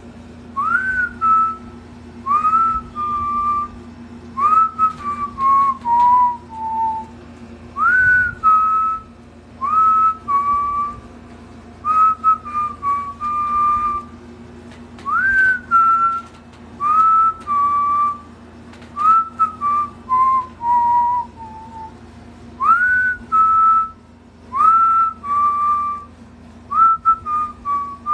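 A person whistling a slow tune in short phrases. Each note swoops up and then holds, and a few phrases step downward, over a steady low hum.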